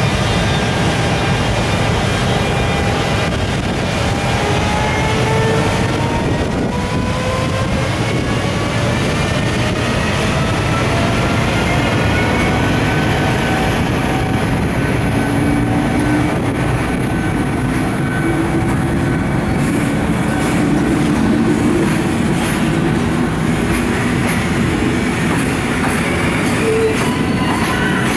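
Container freight train hauled by an EF510 electric locomotive, pulling away from a standstill: a steady rolling rumble with a whine that rises gradually in pitch over the first half as the train gathers speed, then holds steady.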